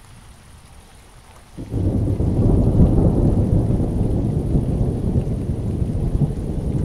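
Rain falling on a wet paved path, joined about a second and a half in by a sudden loud, deep rumble of thunder that carries on to the end.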